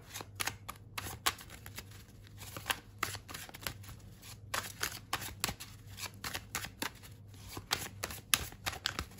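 A tarot deck being shuffled by hand, overhand style: a continuous run of soft, irregular card flicks and slaps as packets of cards drop from one hand to the other. A steady low hum sits underneath.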